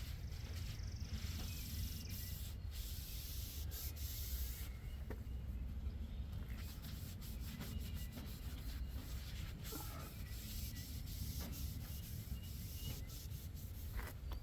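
Hand scrubbing of rusty metal on a sawmill, rubbing the rust off with an abrasive that only knocks down the high spots, a continuous rubbing with scattered small clicks.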